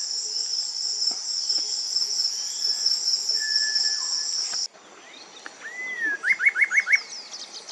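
A loud, steady, high-pitched insect drone, with a faint single long thin whistle of a cinereous tinamou about three seconds in. Both cut off abruptly, and a Coraya wren sings: a slurred note, then a quick series of five rising notes.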